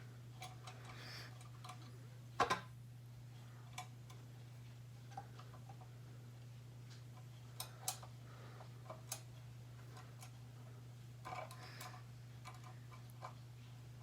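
Scattered light clicks and taps of small metal parts being handled as the bowl-clamp bracket, its screw and a concave washer are refitted to a KitchenAid stand mixer, the sharpest knock about two and a half seconds in. A steady low hum runs underneath.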